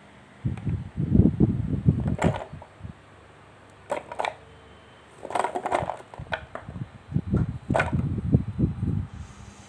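Chopped shallots, garlic cloves and ginger pieces tipped off a plastic cutting board into a food chopper's plastic bowl, knocking and rattling against the plastic and the steel blade in four irregular bouts with short gaps, plus a few sharp clicks.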